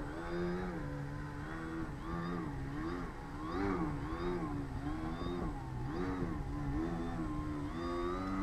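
Motor and propeller of a Skeeter 40 RC aerobatic plane hovering nose-up, its pitch rising and falling about once a second as the throttle is worked to hold the plane hanging on its prop.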